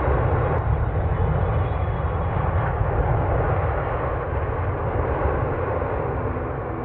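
Airliner cabin noise in flight: a steady, low rushing drone of engines and airflow heard from inside the cabin.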